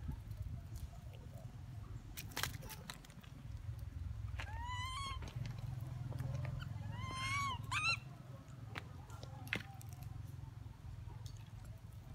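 A young macaque squealing: two rising, cry-like squeals about halfway through, the second followed by a brief third. A couple of sharp clicks and a low rumble run underneath.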